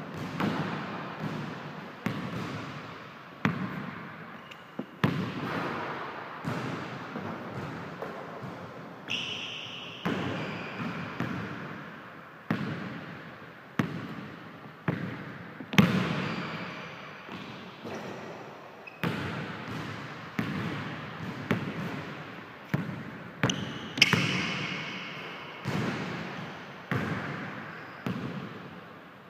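A basketball bouncing on a hardwood gym floor, a sharp bounce every second or so, each one echoing and fading through the large hall. Twice a short high squeak cuts in.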